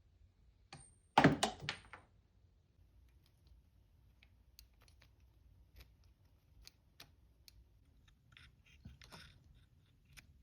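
Handling noise during a repair: a quick cluster of loud knocks about a second in, then scattered light clicks and taps.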